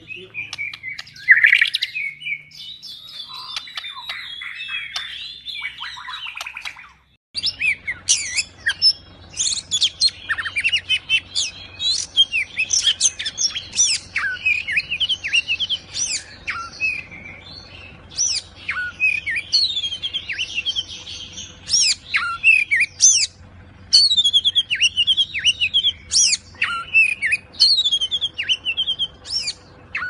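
Caged white-rumped shamas (murai batu) singing vigorously: one bird's song cuts off abruptly about seven seconds in, then another bird sings a fast, unbroken run of varied whistled phrases and chattering notes over a faint steady hum.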